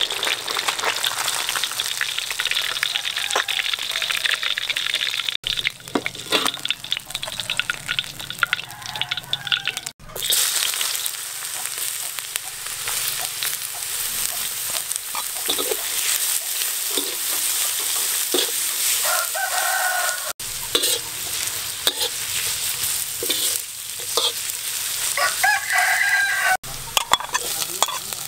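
Hot oil sizzling in a wok, first around a whole fish deep-frying, then under shredded vegetables with chopped garlic and spring onion being stir-fried with a metal spatula. A rooster crows twice in the background, about two-thirds of the way through and again near the end.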